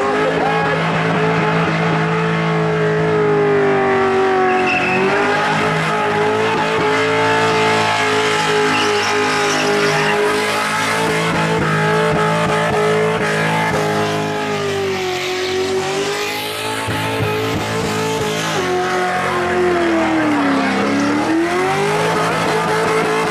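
V8 Holden Commodore doing a burnout: the engine is held at high revs with the tyres spinning and squealing. The revs drop briefly and climb back three times, about five seconds in, around fifteen seconds and near the end.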